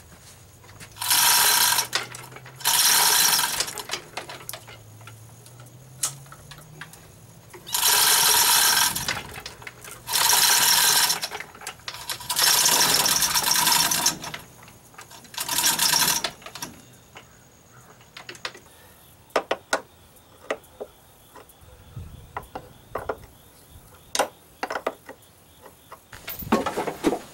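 Hand-operated chain hoist being worked with the heavy outboard hanging from it: six bursts of rattling steel chain and ratchet clicking, each about a second long. Later come scattered light metallic clicks and taps as a wrench works on the outboard's transom mounting bolts.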